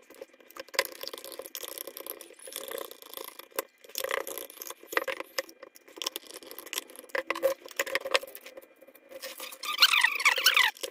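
Hard plastic speaker housings being handled and fitted back together, with irregular clicks, knocks and scrapes of plastic and a screwdriver against the case.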